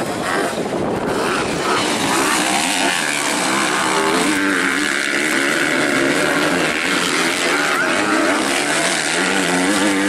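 Engines of two 250cc motocross bikes racing on a dirt track, their pitch rising and falling as the riders open and close the throttle.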